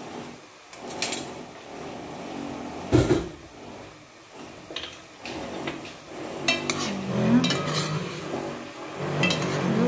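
Knocks and clinks of a utensil against a stew pot, with one sharp knock about three seconds in and a run of clicks and scrapes in the second half as the beef stew is stirred.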